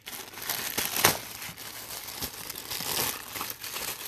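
Packaging crinkling and rustling as it is handled, with a louder crackle about a second in.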